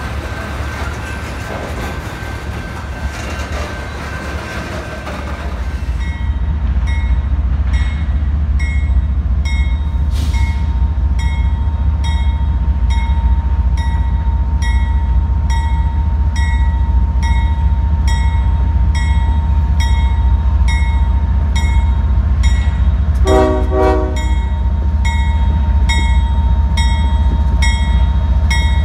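A train rumbling past, growing louder about six seconds in. Over it a bell rings at an even pace, about one and a half strikes a second. A short train horn blast sounds about two-thirds of the way through.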